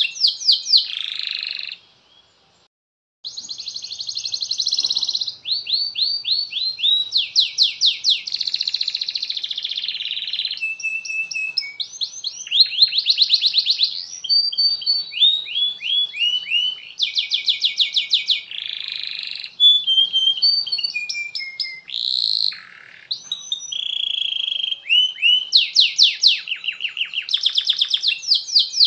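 Male canary singing a long, continuous song of rapid trills and rolls, fast repeated notes and buzzy phrases, with one short pause about two seconds in.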